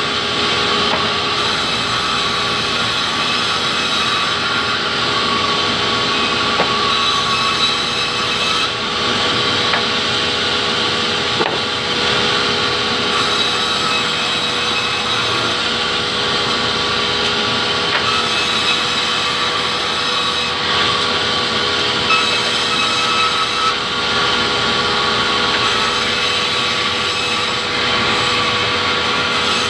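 Large sawmill band saw running with a steady whine and cutting through tropical hardwood timber as slabs are fed through the blade, with a few short knocks of wood.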